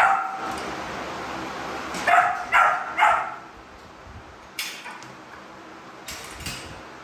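A dog barking: one short bark at the start, then three quick barks about two seconds in, followed by a few faint clicks.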